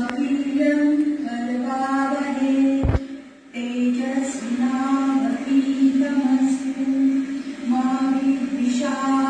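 A mantra chanted as background audio: a voice sings long, held notes in a slow, even chant. A click and a short gap in the chant come about three seconds in.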